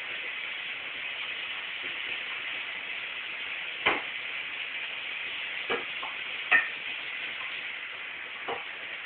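A steady hiss with four sharp knocks of kitchen things being handled at a counter, the loudest about two-thirds of the way through.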